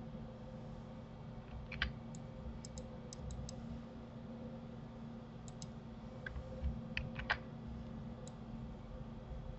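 Scattered clicks from a computer mouse and keyboard, with a few louder ones about two seconds in and again around seven seconds, over a low steady hum.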